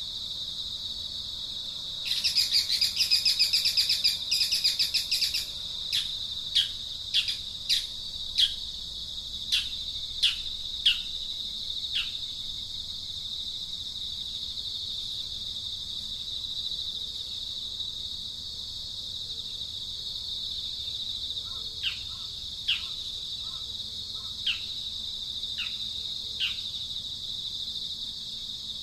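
A steady high insect drone with bird calls over it: a fast chirping trill starting about two seconds in and lasting a few seconds, then single short chirps that drop in pitch, a run of them shortly after and a few more near the end.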